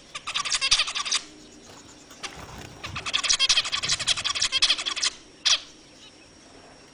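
A flock of caged zebra finches calling: a rapid run of chattering notes at the start, a longer run of about two seconds in the middle, and one louder single call about five and a half seconds in.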